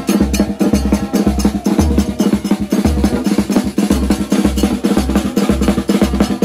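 Marching drums played with sticks: fast snare-drum rolls and strokes over a steady bass-drum beat of about two beats a second.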